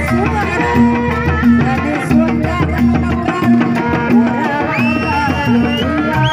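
Sundanese traditional procession music played loud and live: hand drums and a gong over a low note repeating about every 0.7 seconds, with a wavering, gliding melody line on top that climbs to a held high note about five seconds in.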